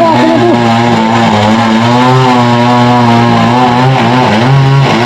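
Chainsaw engine running steadily, its pitch wavering slightly as it works.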